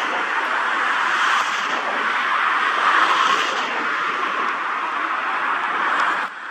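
Cessna Citation XLS business jet's twin Pratt & Whitney Canada PW545B turbofans running, a loud steady jet hiss that drops away suddenly near the end.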